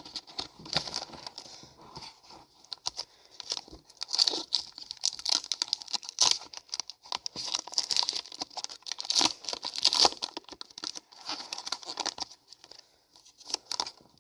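Foil Pokémon booster pack wrapper being torn open and crinkled, a long run of quick, uneven crackles and rustles.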